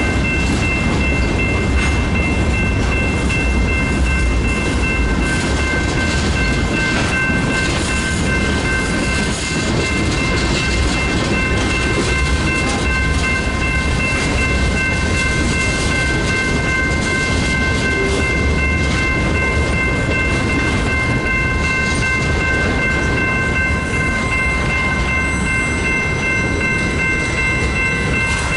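Freight train cars rolling past at close range: a steady rumble of steel wheels on rail with some clickety-clack, and several steady high-pitched tones ringing over it throughout.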